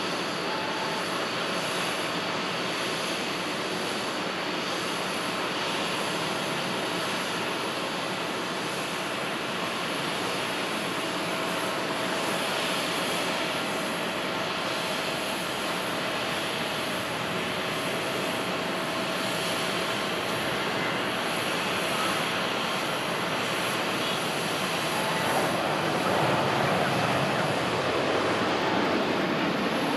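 Boeing 737-700's CFM56 turbofan engines at takeoff thrust through the takeoff roll and liftoff, a steady jet engine noise with a faint steady whine. It grows louder over the last few seconds as the climbing jet comes closer.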